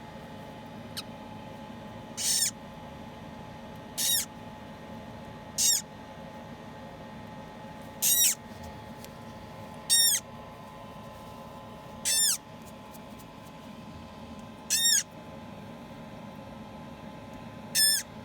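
A parrot chick hatching from its egg gives short, high cheeping calls, about one every two seconds, eight in all. Each call dips in pitch at its end, over a steady hum.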